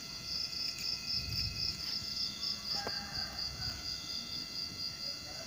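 Crickets chirping in a steady, rapidly pulsing high trill.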